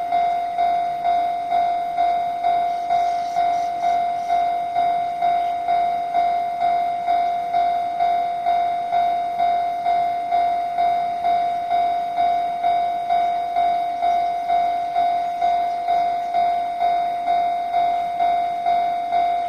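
Japanese railway level-crossing alarm ringing: one electronic bell tone struck over and over, about twice a second, at an even pace.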